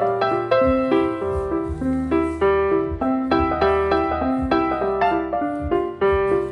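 Background music: a piano playing a light, rhythmic melody over a steady bass line.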